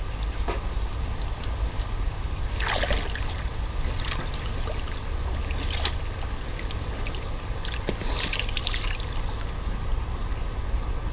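Steady wind rumble on the microphone, with a few brief soft splashes and swishes of pool water as a hand and feet move in it, several of them bunched around the middle and near the end.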